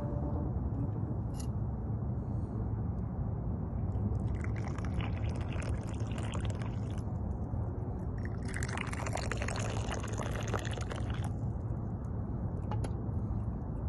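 Tea poured from an enamel teapot into two small glass tea cups, one after the other: a splashing trickle about four seconds in and again about eight seconds in, each lasting about three seconds, over a steady low rumble.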